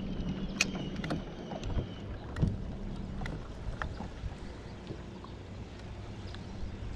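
Wind and water noise around a small fishing boat, with a low steady rumble that eases after about two seconds. A few light clicks and taps in the first half come from hands working the spinning reel and line.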